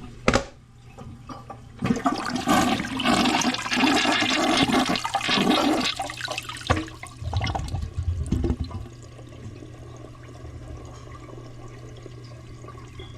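Toilet flushing: a sharp click at the start, then water rushing loudly into the bowl for about four seconds, breaking into gurgles that die away by about nine seconds. A steady hiss of the tank refilling follows. The jets are clogged with mineral deposits, and the plumber judges the jet not to be working.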